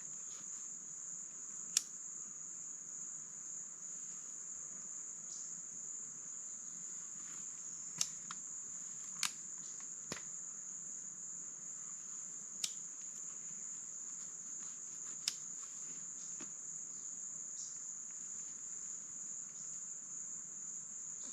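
Steady high-pitched insect chorus, one unbroken shrill tone, with a handful of sharp single clicks or snaps scattered through it.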